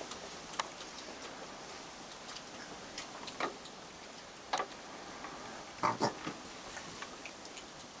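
A raccoon drinking from a plastic bucket of water, making scattered wet lapping clicks and slurps, with a few louder ones around the middle. Underneath is a steady hiss of rain.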